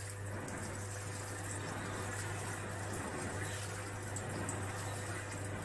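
Panasonic NA-F90A4 fully automatic washing machine running with water in it: a steady rush of water over a constant low hum.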